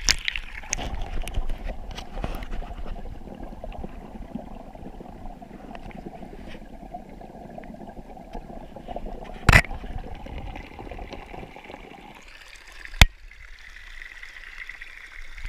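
Mountain stream water rushing over stones, heard muffled from inside an action camera's waterproof housing held underwater. Two sharp knocks, about nine and a half and thirteen seconds in; the water sound thins and turns higher after about twelve seconds.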